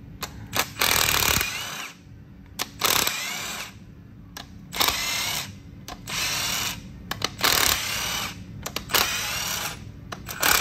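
A cordless impact wrench runs in about eight short bursts, each spinning up with a rising whine, as it takes the bolts off an engine's cylinder head.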